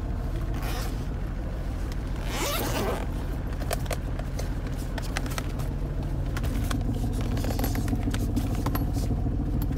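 A zip pulled open in one scraping sweep about two and a half seconds in, with scattered clicks and rattles of things being handled, over a steady low hum.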